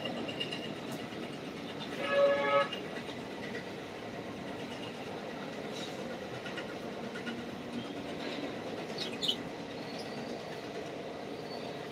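Steady rumble of passing vehicles, with a horn sounding once for under a second about two seconds in. A few faint high squeaks come near the end.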